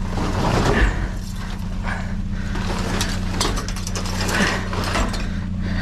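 Irregular clattering, knocking and scraping of junk being shifted and pulled out of a dumpster, over a steady low hum.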